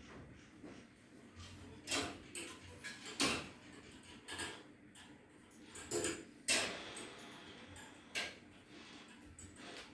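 A few irregular sharp clicks and knocks, about six, spaced unevenly, the loudest a little after three seconds in and again past six seconds.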